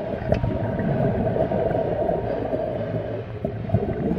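Muffled underwater rumble picked up by a camera on a night dive, with a couple of faint clicks.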